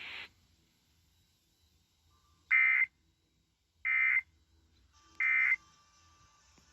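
Three short EAS (SAME) end-of-message data bursts: buzzy digital chirps about a third of a second each, about a second and a quarter apart. They mark the end of the alert message. A brief hiss of static cuts off just before them.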